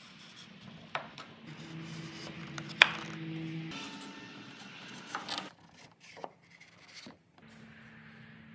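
Wooden parts of a joint being handled and fitted together: rubbing and light knocks of wood on wood, with one sharp knock about three seconds in.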